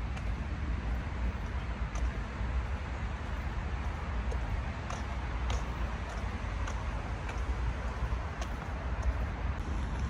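Steady outdoor urban background noise: a low rumble with an even hiss over it and a few faint clicks.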